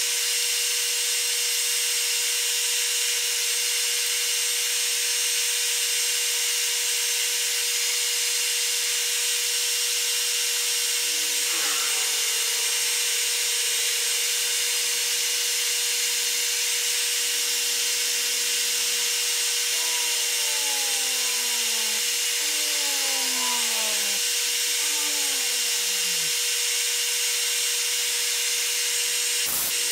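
Metal lathe running steadily while a twist drill bores a small deep hole in 316 stainless steel. From about halfway, short falling squeals come roughly once a second as the drill cuts and chips curl out. A single sharp click comes near the end.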